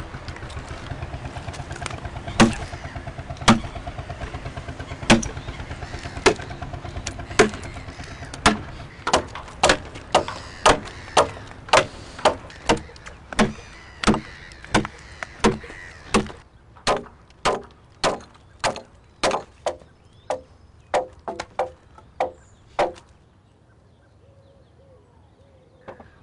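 Repeated sharp blows of a hand tool striking wood, at first about once a second, then about two a second, stopping about 23 seconds in, over a steady low rumble that fades out about two-thirds of the way through.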